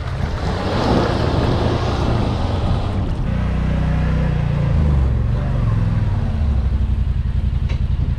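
Water splashing and rushing over a shallow ford for the first few seconds, over a low engine hum. After that comes a side-by-side UTV engine running steadily, its pitch shifting a few times as the machine moves.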